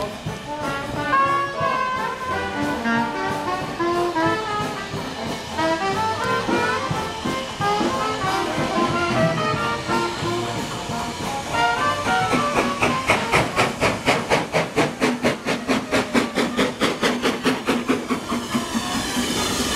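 Brass music: a melody of short notes, joined about twelve seconds in by a fast, even pulse of about four beats a second.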